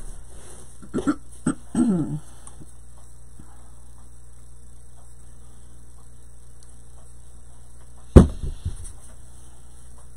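A few short, soft vocal sounds near the start, then one sudden loud thump about eight seconds in, the loudest sound, whose low rumble dies away within about half a second.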